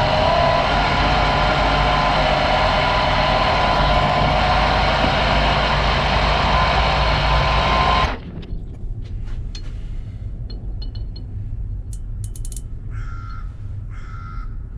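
Metal lathe turning a stud down to diameter: a loud cutting noise with a steady ringing tone, stopping sharply about eight seconds in as the cut ends. After that the lathe runs on with a low hum, and three short calls sound about a second apart near the end.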